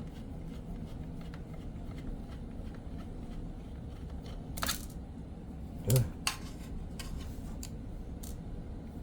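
Small clicks and scrapes of a screwdriver and loose parts being handled while screws come out of a Surface Studio 2+ during disassembly, over a steady low hum. There is a brief scrape about four and a half seconds in, and a sharper, louder click about six seconds in, followed by another soon after.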